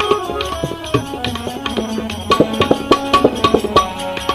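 Instrumental passage of a Gujarati bhajan between sung lines: tabla and other hand percussion playing a quick, busy rhythm over held melodic notes.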